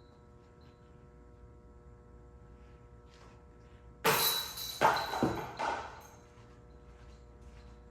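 A disc golf putt striking the basket's chains: a sudden loud metallic crash about four seconds in, followed by a few more clanks and a jangling rattle of chain that dies away within about two seconds.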